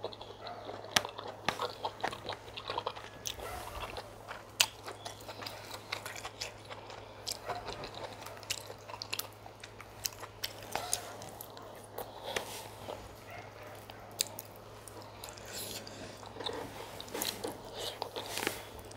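Close-miked eating sounds: a person chewing and biting chicken pepper soup and fufu, with many sharp, irregular mouth clicks and smacks.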